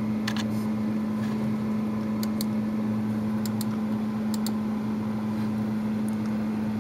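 Computer mouse button clicked a few times, mostly in quick press-and-release pairs, over a steady low hum from a machine in the room.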